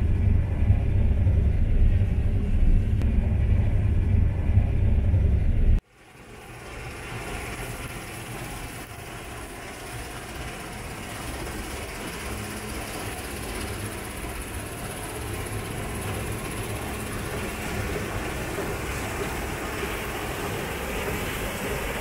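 Claas Lexion combine harvester running under load, heard as a loud, steady low drone from the cab while grain pours into the tank. About six seconds in it cuts off suddenly and gives way to a quieter, even rushing noise of the combine harvesting wheat, heard from outside and slowly growing louder.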